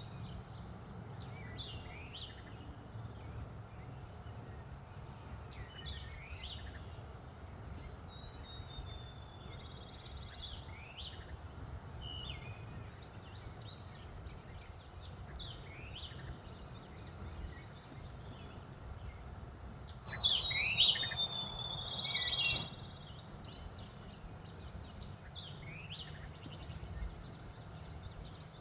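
Several songbirds chirping and singing, short calls scattered throughout with one louder, longer call about twenty seconds in, over a steady low rumble.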